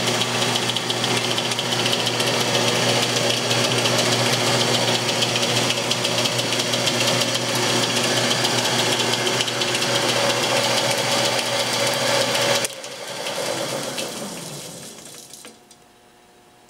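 Jet 12x36 metal lathe running on its DC motor drive: a steady mechanical running noise with several steady tones. About thirteen seconds in it is switched off, and the spindle coasts down with falling pitch until it stops a couple of seconds later.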